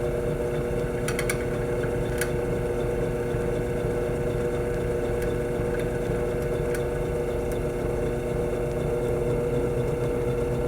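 Electric drill running steadily while drilling a small hole for a coat hanger wire, with a few sharp ticks about a second and two seconds in.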